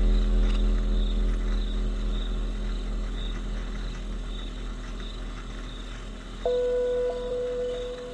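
Background music: a low drone slowly fading under a soft high pulse about twice a second, with a held note coming in suddenly about six and a half seconds in.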